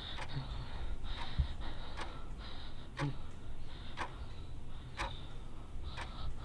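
A clock ticking evenly, once a second, while a man breathes heavily with gasps, over a steady low hum.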